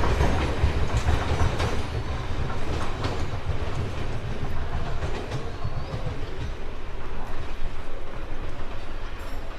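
Train rolling along the rails, its wheels clacking over the rail joints over a steady rumble that slowly eases off as it slows.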